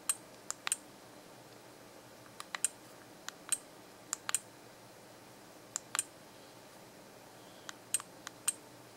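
Buttons on an SJ8000 action camera being pressed to step through its settings menu: short sharp clicks, often two or three close together, in clusters every second or so.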